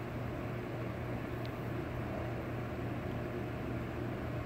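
Steady low machine hum with an even hiss over it, unchanging throughout: background room noise.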